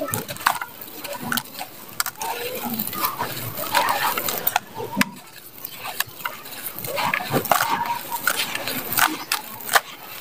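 Dry clods of earth crushed and crumbled by hand, crunching and crackling unevenly as grit and dust fall away, with a quieter stretch around the middle.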